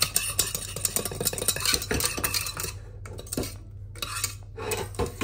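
A kitchen utensil stirring and scraping thick, just-thickened pastry cream in a saucepan, with rapid strokes against the pan that thin out to slower scrapes and a few knocks about two-thirds of the way in.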